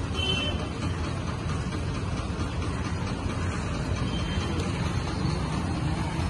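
Steady street traffic noise: a continuous low rumble of passing vehicles on a city road.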